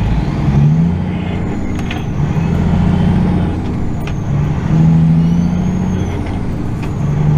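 Semi truck's diesel engine heard from inside the cab, pulling away and accelerating, its pitch rising in several runs with short breaks between them as it shifts up through the gears.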